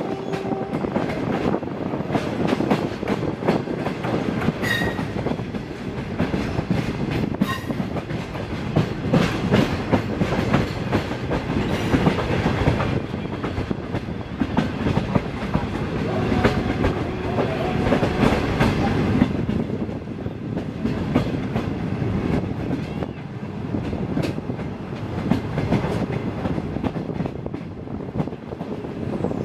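Wheels of a 25B passenger coach clattering over rail joints and yard switches at moderate speed, heard from aboard the coach: a continuous run of irregular knocks. A couple of faint brief tones come near the start and again about halfway.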